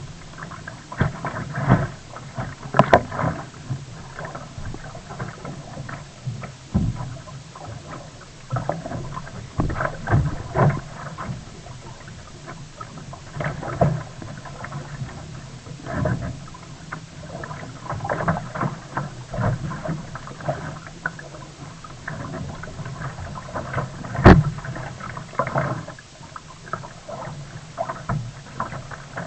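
Sea kayak being paddled: irregular splashing of paddle blades and water against the hull, with a single sharp knock about three-quarters of the way through.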